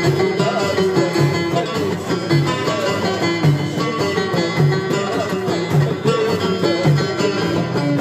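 Live music with plucked string instruments playing over a repeating bass line.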